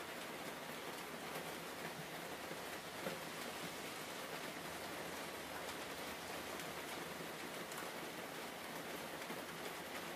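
Steady rain sound, an even hiss with faint scattered ticks of drops.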